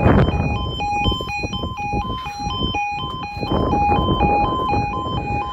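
UK automatic half-barrier level crossing warning alarm sounding while the barriers lower: two pitches switching back and forth several times a second. It is the signal that a train is approaching. Underneath is a low rushing noise, loudest at the start.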